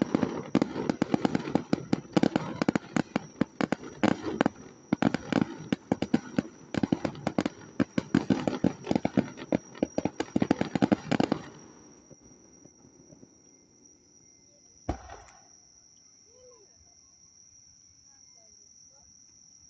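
Aerial fireworks bursting in a dense, rapid barrage of cracks and bangs for about eleven seconds, then stopping; a single bang follows a few seconds later.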